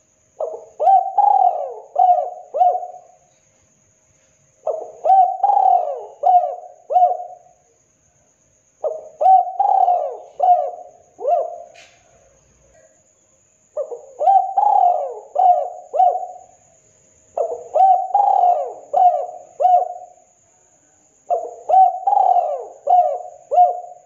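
Spotted dove cooing: six phrases of about five rising-and-falling coos each, repeated every four seconds or so with short pauses between.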